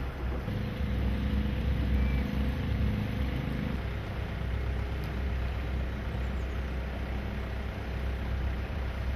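Motorboat engine running steadily, a low rumble with wind on the microphone; an extra hum sits over it and stops about four seconds in.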